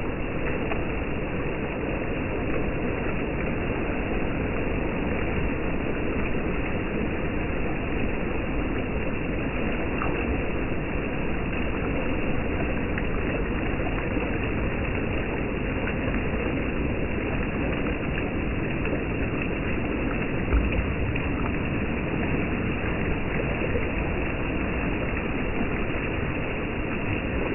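Small surf waves breaking and washing over shallow water at the shoreline: a steady wash of noise with a low rumble, and one brief low thump about twenty seconds in.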